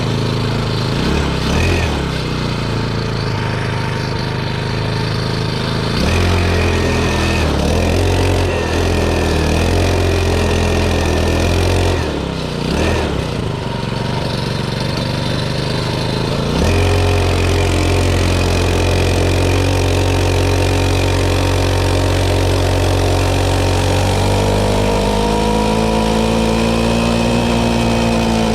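Pocket bike's small engine running after a repair, moving between idle and higher revs: the pitch steps up about six seconds in, dips briefly near the middle, and rises and falls again near the end.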